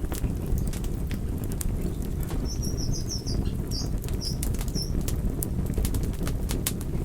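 Campfire crackling, with irregular sharp pops and snaps over a steady low rumble of burning. About two and a half seconds in, a short run of high chirps sounds for a few seconds.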